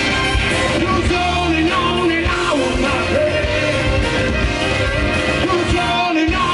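Live rock band playing loudly, electric or acoustic guitars and a drum kit, with a singing voice over them.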